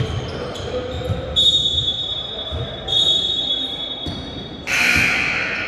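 Basketball dribbled on a gym floor, with sneakers squeaking on the hardwood twice in long high squeals. A sudden burst of crowd noise comes near the end.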